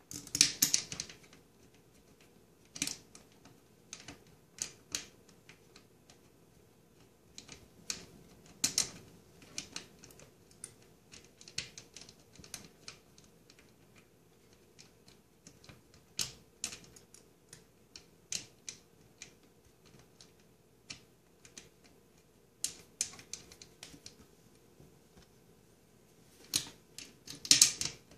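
Irregular sharp plastic clicks and clacks as a fitting is worked by hand onto a garbage disposal's discharge outlet, with quicker bunches near the start, about nine seconds in, and near the end.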